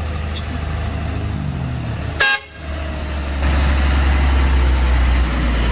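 Hino FM260TI truck's diesel engine running as the truck drives past, with one short toot of the horn about two seconds in. The engine gets louder about a second after the toot.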